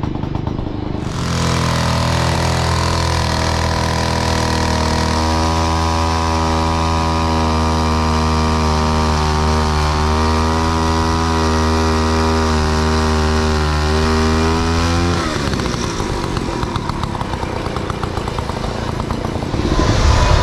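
A big antique chainsaw engine runs with a steady note, which grows fuller about five seconds in. It is shut off about fifteen seconds in, and the engine note stops abruptly.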